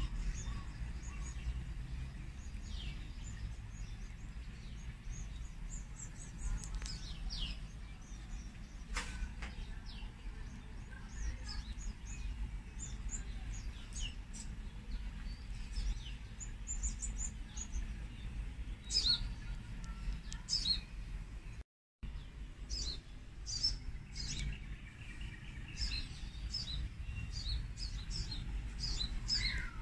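Small birds chirping and twittering over and over in short high calls, over a steady low rumble. The sound cuts out completely for a moment about two-thirds of the way through, then the chirping carries on.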